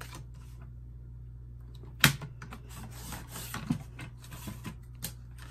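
Sliding paper trimmer cutting and handling laminated card. A sharp click about two seconds in is followed by a scraping stretch and a few lighter clicks near the end.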